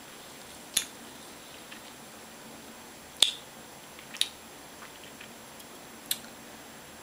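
Short wet mouth clicks and lip smacks while tasting a sip of cola, a handful of them spread a second or more apart; the loudest comes a little past three seconds in.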